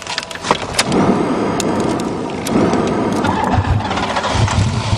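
Buick 3.8-litre V6 being cranked on starting fluid, catching about a second in and running on.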